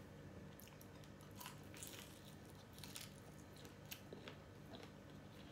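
Faint chewing and crunching of crispy deep-fried breaded shrimp, a scatter of small crunchy clicks over a faint steady low hum.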